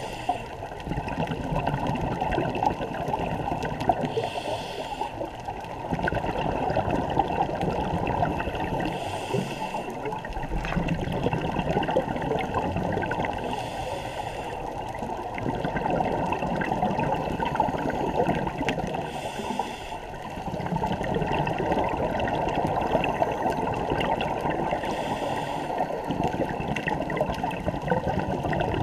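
Scuba diver's regulator breathing, heard underwater through a camera housing: a short hissing inhale about every five seconds, each followed by a long rush of exhaled bubbles, over a steady muffled rush of water.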